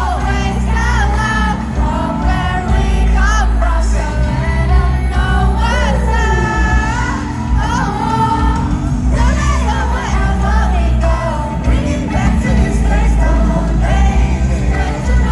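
Live K-pop/hip-hop concert music played loud through a stadium PA: a heavy bass beat under sung and rapped vocals.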